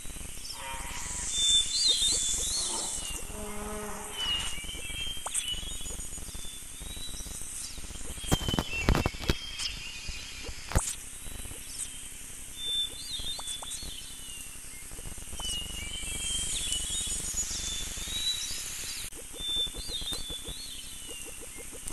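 Birds chirping in an outdoor nature ambience, the same chirps coming back several times, with a few short sharp knocks about eight to eleven seconds in.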